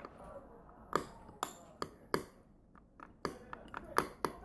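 Eating utensil knocking against a dish of food: a series of irregular sharp clinks, some ringing briefly.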